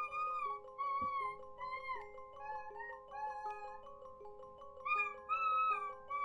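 Music box tinkling a repeated pattern of plucked notes, with a higher melody above it that slides and wavers between notes.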